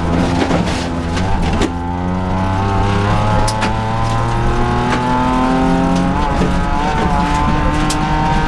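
Rally car engine heard from inside the cabin, pulling hard and rising in pitch through the gears, with a gear change about one and a half seconds in and another about six seconds in. Sharp knocks from gravel striking the car come through now and then.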